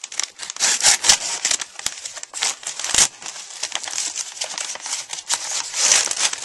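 A USPS Priority Mail envelope crinkling and crackling as it is handled and squeezed by hand, with many sharp crackles, the loudest about three seconds in.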